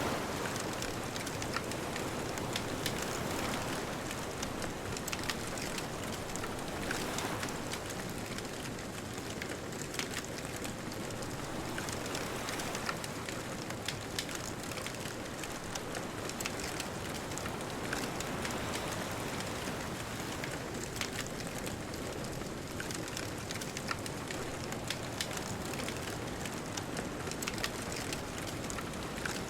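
Beach bonfire crackling with frequent sharp pops over a steady wash of distant ocean waves.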